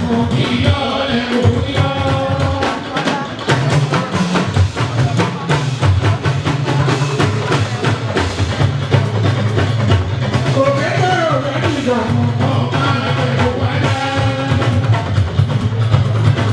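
Fuji band playing: dense, driving hand-drum percussion over a steady bass line, with a lead singer's voice gliding in and out over it.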